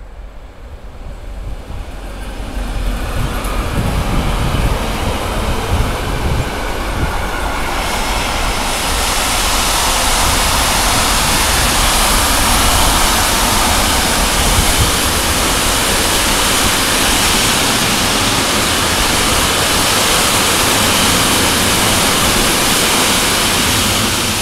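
Freight train behind an electric locomotive passing close by: the sound builds over the first few seconds as the locomotive comes level, then settles into a steady loud rush of steel wheels rolling on the rails as the wagons go past.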